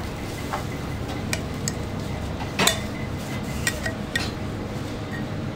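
Wide metal spatula clinking and knocking against a wooden board as food is worked on it: a handful of sharp clicks, the loudest about two and a half seconds in, over a steady low hum.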